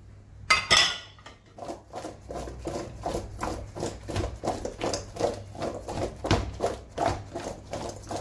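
Chicken drumsticks and oily diced vegetables tossed in a stainless steel mixing bowl, the food slapping and sliding against the metal in a steady rhythm of about three to four strokes a second. A short clatter of crockery about half a second in.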